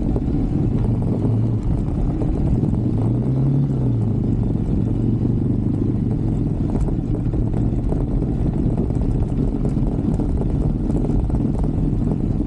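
125cc Brixton motorbike's single-cylinder engine running while riding, with heavy wind rumble on the microphone. The engine pitch rises and falls briefly about three seconds in, then holds steady.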